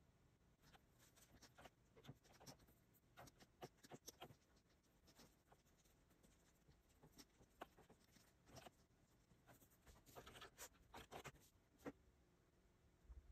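Quiet, irregular clicks of mechanical keyboard keys mixed with the taps and scratches of a plastic stylus drawing on a Wacom Cintiq pen display, with a busier run of strokes about ten seconds in.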